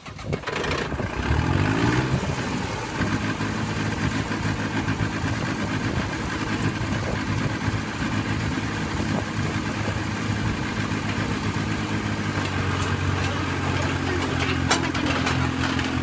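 Small crawler dozer's engine revving up about two seconds in, then running steadily under load as the dozer crawls forward onto the truck's ramps; a single sharp click near the end.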